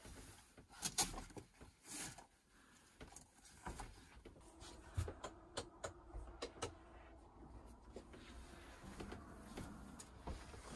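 Caravan blackout blinds being drawn shut: a string of sharp clicks and knocks with rustling in between, densest about a second in and again in the middle.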